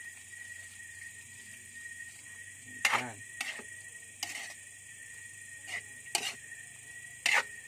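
Metal spatula stirring and scraping bamboo shoots in a steel wok, knocking against the pan about six times; the loudest strikes come about three seconds in and near the end.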